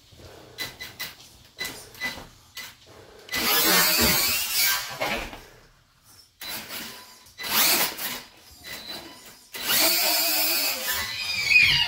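Losi LMT solid-axle RC monster truck's brushless electric motor whining in three bursts of throttle, the longest near the end, with light clicks before the first burst.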